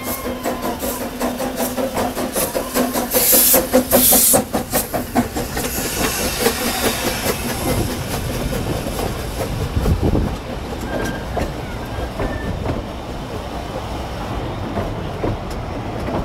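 Earl of Merioneth, a Double Fairlie narrow-gauge steam locomotive, running into the station with a rapid run of knocks and a loud hiss of steam about three seconds in. Its carriages then roll slowly past with a rumble and a clickety-clack of wheels over the rail joints.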